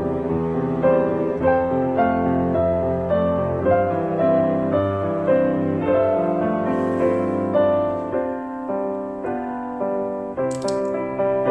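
Background piano music: a slow, gentle melody of single notes over sustained chords.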